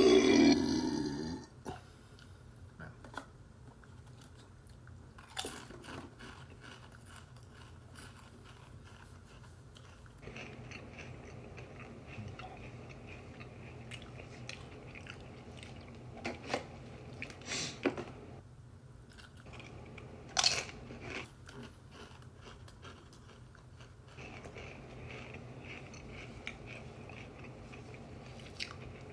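A loud burp right at the start, lasting about a second and a half, then a person chewing wavy Pringles potato crisps close to the microphone, with sharp crunching bites now and then and quieter chewing between.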